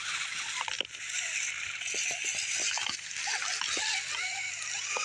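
Electric RC rock crawler on rocks: its motor and gears whine up and down in short throttle bursts, with scattered clicks and knocks as it climbs.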